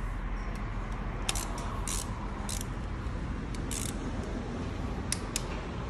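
Hand ratchet wrench clicking in short, irregular bursts as its handle is swung back and forth, turning bolts on an engine's cylinder head.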